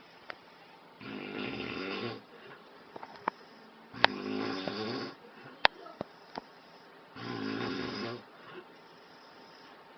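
A person snoring: three snores about a second long each, one roughly every three seconds, with a few sharp clicks in the pauses between them.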